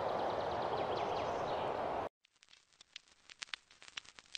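Outdoor camcorder ambience: a steady rushing noise with faint high chirps, which cuts off suddenly about two seconds in. Sparse crackling clicks, like record static, follow.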